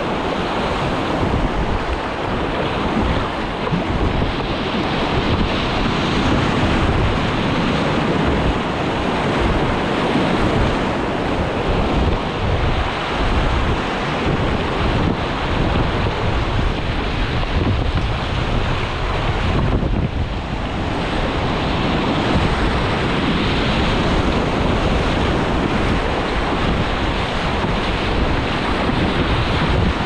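Rushing whitewater of a rocky river heard from a racing kayak running the rapids, with wind noise on the microphone.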